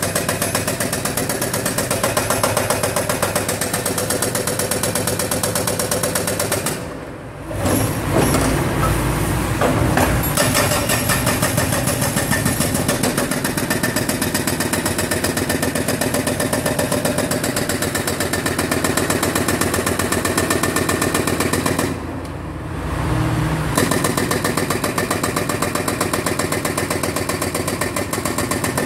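TOPA 900 hydraulic breaker on a John Deere 710G backhoe loader hammering in rapid, continuous blows over the backhoe's diesel engine. The hammering stops twice for a second or two, about a quarter of the way in and again about three-quarters of the way in, leaving only the engine running.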